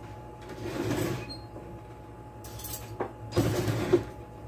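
Two short bursts of kitchen handling noise, each under a second, with a click just before the second burst and a sharp knock at its end.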